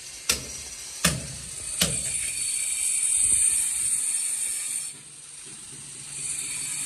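Three sharp hammer knocks on metal, roughly three-quarters of a second apart, each with a short ring. Then a steady high-pitched hiss that breaks off for about a second near the end.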